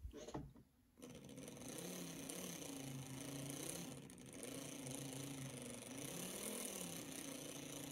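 Small electric motor of an HO scale Bowser 2-8-0 steam locomotive chassis running at low speed on the bench, turning the gears and driving wheels to work fresh grease through the gear mesh. The steady whirring hum starts about a second in, its pitch wavering slightly.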